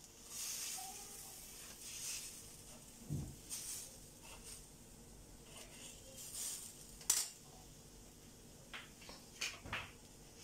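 Metal ladle scraping and swishing over a flat griddle pan as it spreads a thin rice-flour batter in circles. Light clinks and knocks come through, with one sharp click about seven seconds in and a few small knocks near the end.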